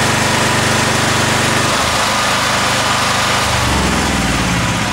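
Honda EM4500S generator engine running steadily under a heavy test load while its governor setting is checked. Its note changes about two seconds in and again around three and a half seconds in.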